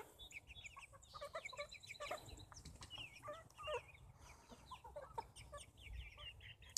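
A flock of young chickens peeping and clucking softly, many short falling peeps overlapping throughout.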